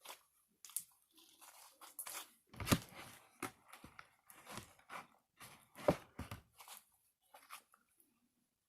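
Slime being kneaded and squished with warm water, making irregular wet pops and crackles, with two louder squelches about three and six seconds in.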